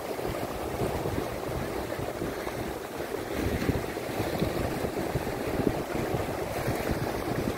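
Small waves washing through shallow, murky surf, with wind buffeting the microphone; the wash gets a little louder about three seconds in.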